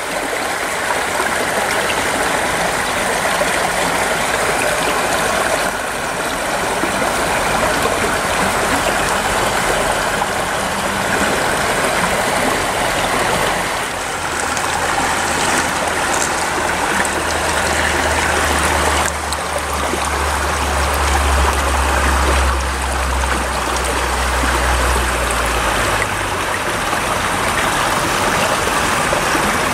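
Shallow creek water rippling and trickling over stones in a steady rush. A low rumble joins in for about ten seconds midway.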